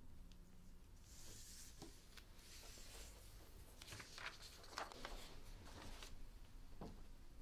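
Faint rustling of a sheet of paper being picked up and handled over a desk, with a few soft scrapes and taps in the middle.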